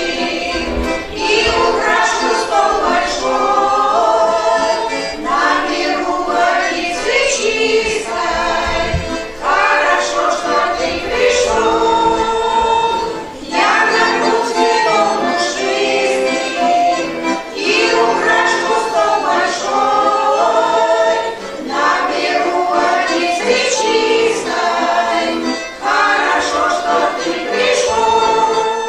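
A choir singing a song, several voices together, with music.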